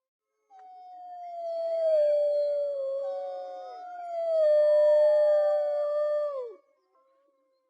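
Wolves howling in chorus: several overlapping long howls at different pitches, starting about half a second in, each slowly sliding down and falling away sharply near the end.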